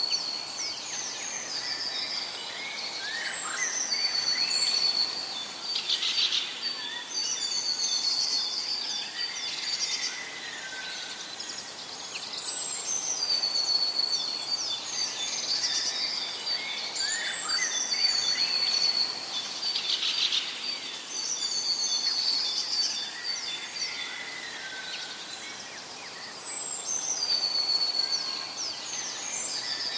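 Several birds singing and chirping together, with many short whistled phrases and calls, over a steady background hiss.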